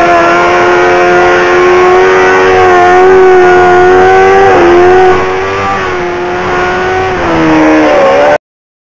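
Motorcycle engine held at high revs during a burnout, the rear tyre spinning against the road. The pitch holds steady, dips briefly about halfway, falls near the end, and then the sound cuts off suddenly.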